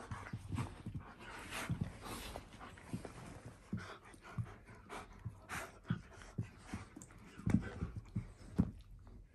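Golden retriever puppy and husky play-wrestling: dog panting and mouthing noises in irregular short bursts, with no barking.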